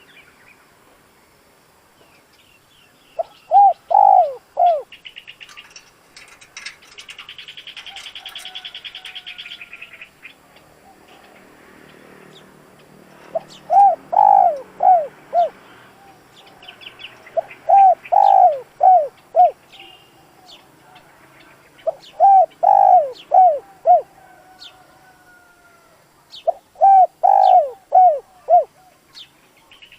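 Spotted dove cooing: five phrases of four to five short coos each, coming every four to five seconds. This is a calling bird used to provoke wild doves. Fainter small-bird chirps and a rasping buzz sound behind it.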